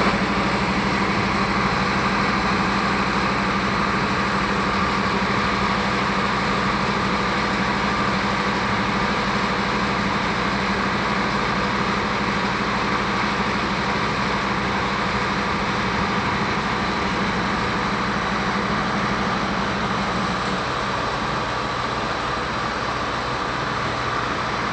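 Transit mixer truck being loaded at a ready-mix concrete batching plant: steady, continuous heavy machinery running. A low steady hum stops about twenty seconds in.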